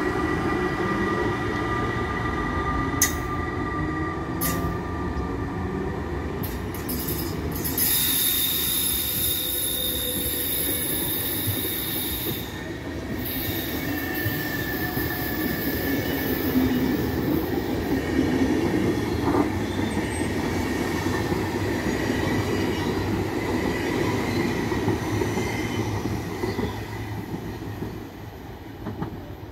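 An SBB InterRegio train of Einheitswagen coaches, hauled by an Re 460 electric locomotive, rolls past the platform as it departs. A continuous rumble of wheels on track carries steady high whining tones, with a few sharp clicks in the first several seconds, and grows fainter near the end as the train moves away.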